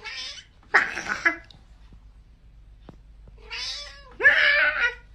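A cat meowing four times: a short call at the start, a loud one about a second in, then two more in quick succession near the end.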